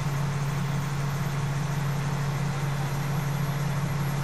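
Fire engine's diesel engine running with a steady low drone, heard from inside the cab.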